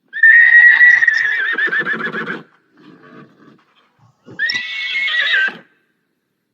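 Horse whinnying twice: a long quavering whinny at the start, then a shorter one about four seconds in.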